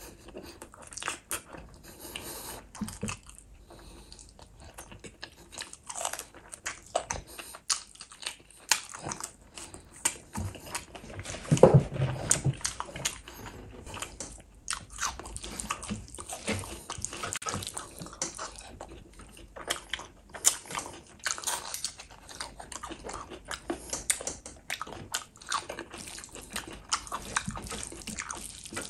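Eating sounds: chewing and biting of saucy chicken and rice, with a dense run of short wet clicks and one louder stretch about twelve seconds in.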